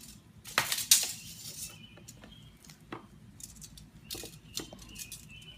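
Small hard objects, tools or hardware, clinking and clattering against each other several times, loudest about a second in, with a few more clinks near the end.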